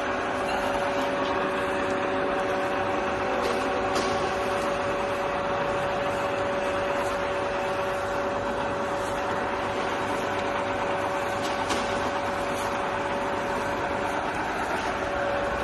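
Niigata 2UMD universal milling machine running, a steady mechanical hum with a constant whine and a few faint ticks.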